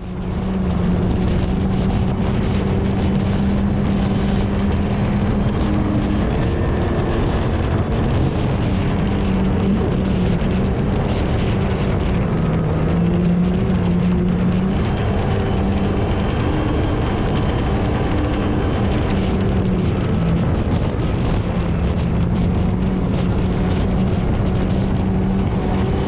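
Supercharged four-cylinder engine of a 2022 Kawasaki Ultra 310LX personal watercraft running hard at speed. It holds a steady engine note that sags briefly a couple of times as the throttle eases, under constant water-spray and wind noise on the microphone. A faint high supercharger whine comes through around the middle.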